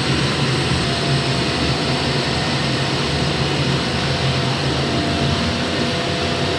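Welding electrode production machinery running with a loud, steady mechanical drone and hum, unchanging throughout.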